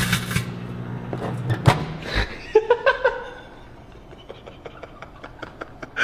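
Microwave oven humming as it runs, with a short crackling rush as an empty chip bag shrinks inside it near the start. The hum cuts off with a click about one and a half seconds in, followed by a few short laughs and scattered clicks.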